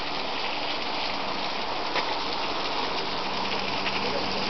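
Warm-spring water running and splashing down rocks: a steady rush of falling water.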